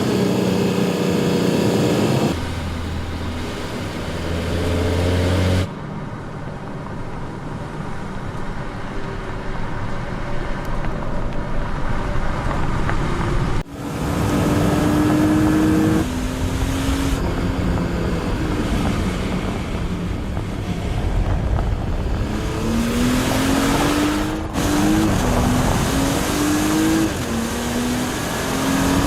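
Porsche Cayenne E-Hybrid's six-cylinder engine running under way, with road noise. In the later part it accelerates, its pitch rising and dropping back several times as it shifts up through the gears.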